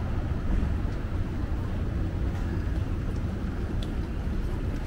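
Night street ambience in a city alley: a steady low rumble with a faint hum of background noise and a few soft ticks.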